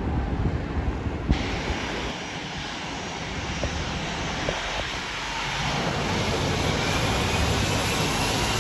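Aircraft engines, a steady rushing noise that grows louder over the last few seconds, with a faint rising whine near the end. Wind buffets the microphone at the start.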